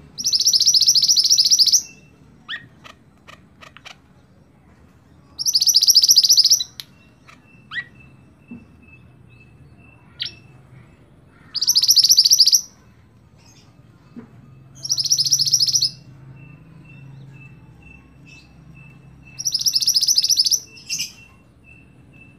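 A black-and-red songbird known in Indonesia as mantenan singing: five loud, fast, high trills, each lasting about a second and coming every four to five seconds, with faint short chirps and a thin steady high note between them.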